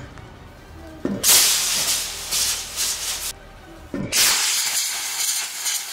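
Model rocket engine firing with a loud hiss, twice, each burn starting suddenly and lasting about two seconds.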